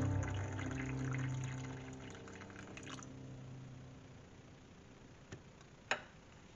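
Water poured from a kettle into a china cup over a tea bag, splashing steadily and stopping about three seconds in. Near the end come two short sharp knocks.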